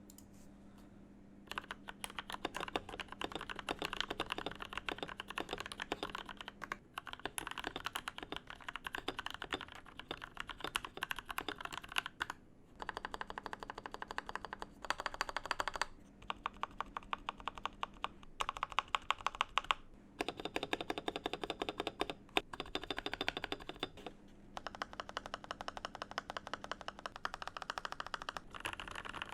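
Fast typing on a custom TM680 mechanical keyboard: rapid key clacks in runs of a few seconds with short pauses, with louder single strikes standing out among them. The sound changes slightly about twelve seconds in, as a before-and-after typing test.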